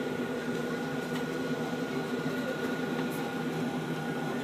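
Steady hum of a moored navy vessel's onboard machinery: a constant low drone with a thin, unchanging whine above it.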